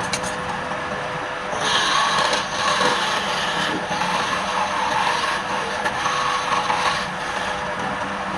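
Wood lathe running with a steady hum while a turning tool scrapes and cuts the spinning palm-wood bowl. The cutting noise is louder from about one and a half seconds in until about seven seconds in.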